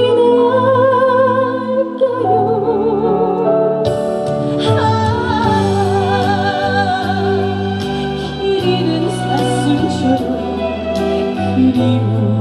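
Trot song played live through a PA: a melody line with heavy vibrato over sustained chords and bass, with drums and cymbals joining about four seconds in.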